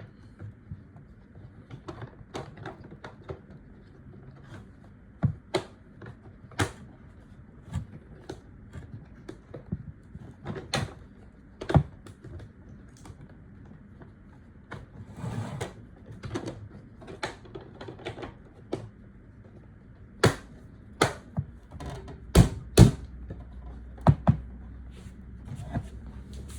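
Irregular sharp clicks and knocks, one every second or so, with a cluster of louder ones near the end.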